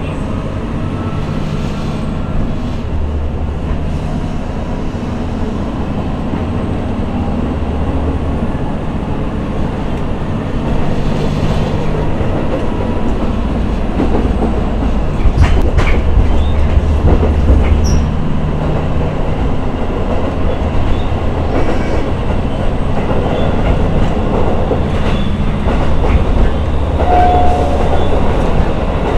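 Cabin sound of a KiHa E130-series diesel railcar running: a steady low drone from the diesel engine and running gear. It grows louder about a third of the way through, with a few sharp clicks of the wheels over the rails around the middle.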